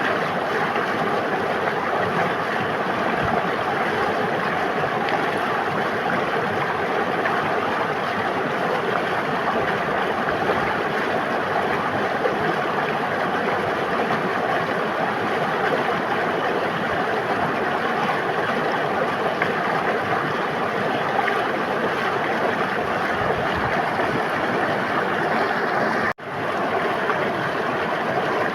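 Steady rushing of a flowing river, an even wash of water noise. Near the end it cuts out for an instant and swells back in.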